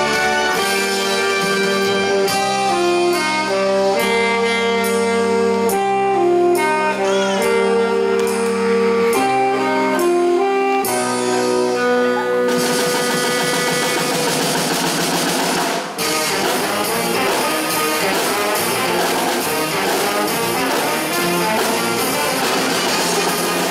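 Live brass band with saxophones, trumpets and a sousaphone playing a melody in held notes. About twelve seconds in, the sound turns dense and busy as the marching drums drive in, with a brief break a few seconds later.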